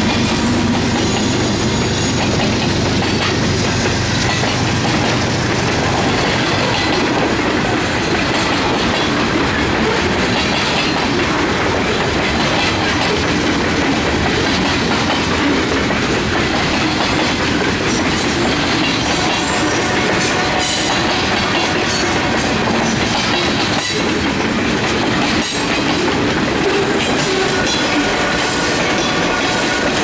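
Freight cars of a CSX train rolling past over jointed rail, the wheels clicking over the rail joints in a steady clickety-clack. The low diesel rumble of the trailing GE ES44 locomotive fades out over the first several seconds.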